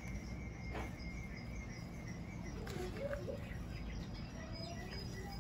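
Faint garden ambience: birds chirping over a low steady background rumble, with a thin steady high tone that stops about two seconds in. A couple of soft knocks come from hands working potting soil in a plastic pot.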